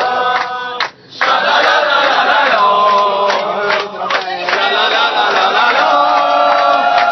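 A crowd of people loudly singing a 'sha-la-la-la' chant together, many voices holding the sung notes in unison, with a brief break about a second in.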